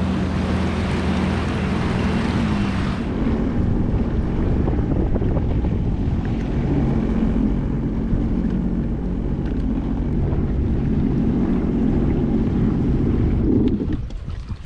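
Sea-Doo GTX 170 personal watercraft engine running steadily at low speed, with water wash and wind on the microphone. The engine sound drops away suddenly near the end as the craft reaches shore.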